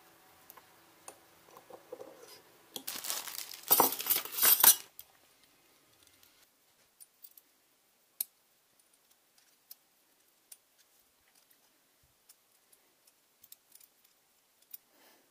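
Small brass and steel parts of a model steam engine kit clinking and rattling as they are handled, loudest for a couple of seconds about three seconds in, then scattered faint clicks and taps.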